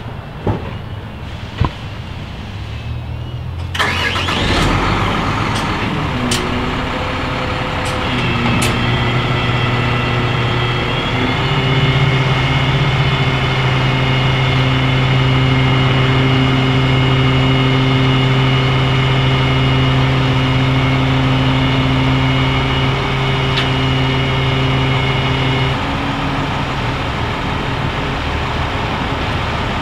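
Two sharp knocks, then a dump truck's engine starts about four seconds in. It revs up with a steady whine from the hydraulic hoist as the dump body is raised, and the whine stops near the end, leaving the engine running.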